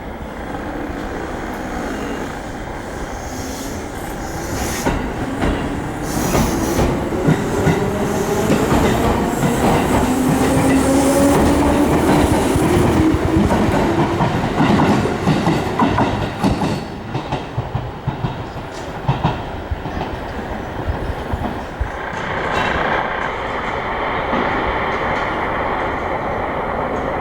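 Electric train of the Seibu Tamagawa Line pulling away, its motor whine rising in pitch as it accelerates, with the wheels clacking over rail joints. The clacking dies out about two-thirds of the way through, and a steadier hiss takes over near the end.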